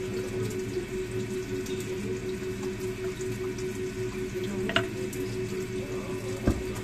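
Cauliflower florets being cut and snapped off with a knife, with small crisp cuts over a steady background hum. A sharp snap comes about five seconds in, and a low thump comes near the end.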